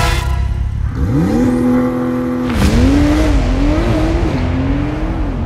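Sports car engine revving. The pitch climbs about a second in and holds high, dips with a sharp burst of noise about two and a half seconds in, then rises and falls in several quick blips before settling into a steady high rev.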